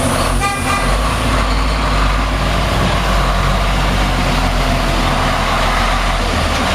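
Heavy truck engine idling steadily with a low, even rumble. A short high tone sounds about half a second in.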